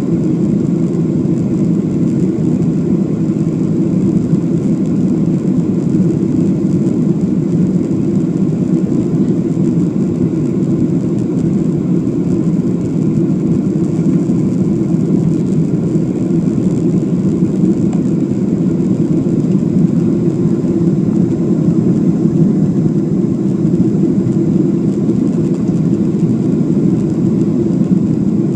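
Airliner cabin noise during takeoff and climb: the engines and rushing air make a steady, deep, even din with no change in pitch or level.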